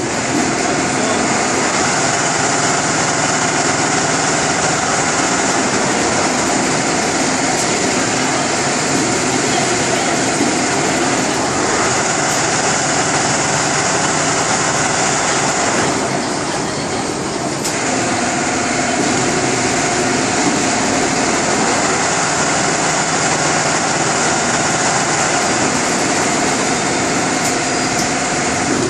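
Richpeace six-head automatic bridge-type sewing machine running, its heads stitching together with a steady mechanical whir and a high whine. About sixteen seconds in, the whine drops out for roughly two seconds, then picks up again.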